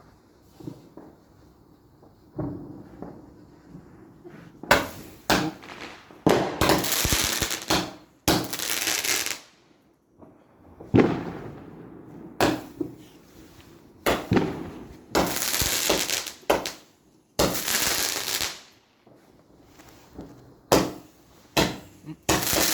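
Garden fireworks going off after the fuse has been lit: a run of about a dozen sharp bangs starting about four and a half seconds in, each followed by a second or so of hissing and crackling.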